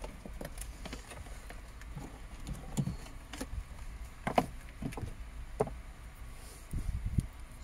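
Scattered light clicks, knocks and rustling from cables and plastic dashboard trim being handled, with a sharper click a little past halfway.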